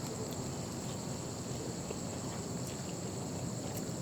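Steady chorus of insects, a constant high-pitched trill that holds level throughout, with a few faint light clicks.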